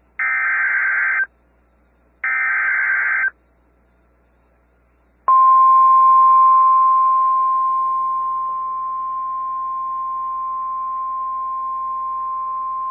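Two bursts of Emergency Alert System SAME header data, each a harsh warbling burst of data tones about a second long, are followed by a short pause. About five seconds in, NOAA Weather Radio's steady single-pitch 1050 Hz warning alarm tone starts; it drops somewhat in loudness a few seconds later and then holds steady. The tone signals that a warning message is about to be read, here a severe thunderstorm warning.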